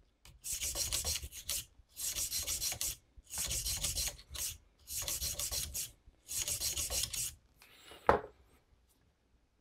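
Nylon bore brush on a cleaning rod scrubbed rapidly back and forth through the chambers of a stainless revolver cylinder, loosening fouling. It comes in five spells of about a second each, with short pauses between.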